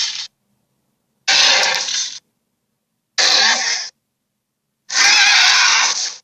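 Giant ape roar sound effects: the tail end of one roar, then three gruff roars of about a second each, with dead silence between them.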